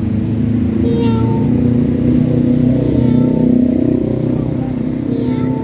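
A motor vehicle engine running close by, a steady rumble that grows fuller in the middle. A short, steady tone repeats about every two seconds over it.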